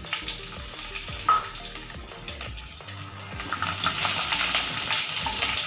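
Cumin, vadagam and garlic cloves sizzling and crackling in hot oil in a pan, getting louder about four seconds in.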